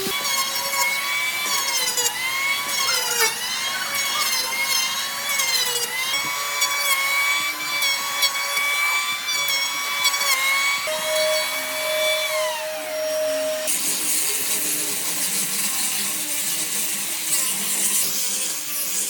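Small electric power tool working wood, its motor whine dipping and recovering as it is loaded. About 12 seconds in the whine falls away as the tool winds down, and a steady hiss follows.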